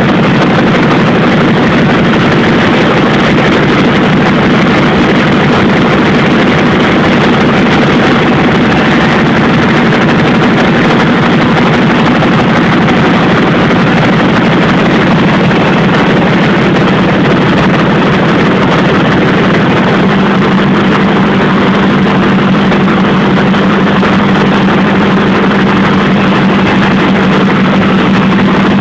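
Rotary printing press running, a loud continuous mechanical din with a steady low hum that grows a little stronger about twenty seconds in.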